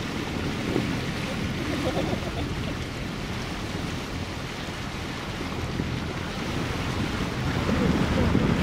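Wind buffeting the microphone over the rush of water along the hull of a moving tour boat, growing louder near the end.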